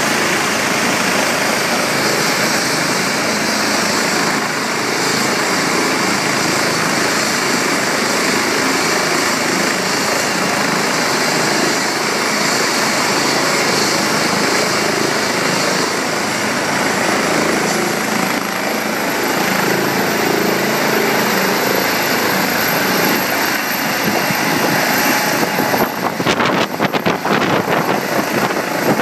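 Helicopter running on the ground with its rotor turning, a loud steady rush with a thin high whine that rises slowly as it powers up. About three seconds before the end the sound turns uneven and fluttering as the helicopter lifts off.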